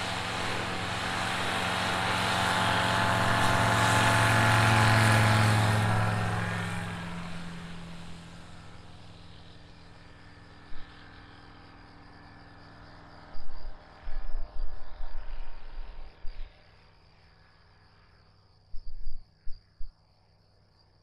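Kitfox bush plane's engine and propeller at takeoff power, loudest about five seconds in as it lifts off, then fading steadily into the distance. Short gusts of wind hit the microphone in the second half.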